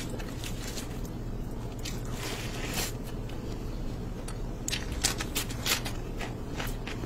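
Close-up eating sounds: sauce-covered food squished and gathered by hand, with crunchy bites and sharp clicks scattered through, a cluster of louder ones about five seconds in.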